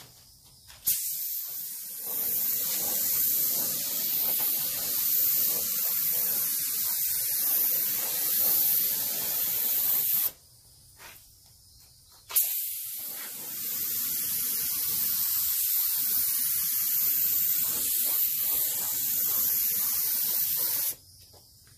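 Gravity-feed compressed-air paint spray gun spraying in two long passes of about nine seconds each, a steady hiss of air and atomised paint. Each pass starts and stops abruptly as the trigger is pulled and released, with a pause of about two seconds between them.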